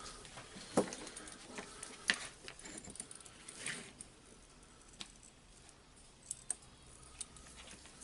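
Faint, scattered light clicks, taps and rustles of a soldering iron tip and gloved hand working at a drill motor's wire terminals, unsoldering the leads.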